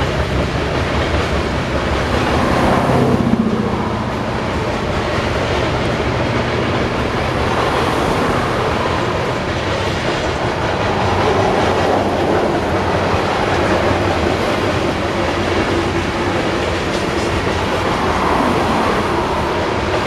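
Loaded coal hopper cars of a freight train rolling steadily past, their steel wheels clacking over the rail joints.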